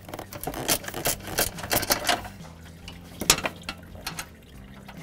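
Socket ratchet clicking in quick, uneven runs while backing out small mounting bolts, then one sharp metallic click a little over three seconds in.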